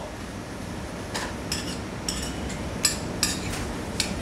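Dishes and metal utensils clinking: short, sharp strikes with a bright ring, a few a second at uneven intervals, starting about a second in over a low steady background.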